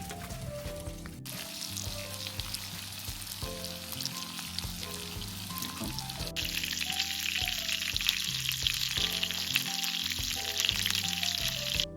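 Food sizzling and crackling in a hot pan, louder from about six seconds in and cut off abruptly near the end, over background music.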